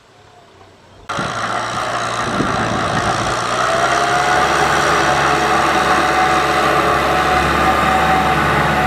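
Kubota M6040SU tractor's diesel engine running steadily, with a steady whine on top. It comes in abruptly about a second in, after a quieter start.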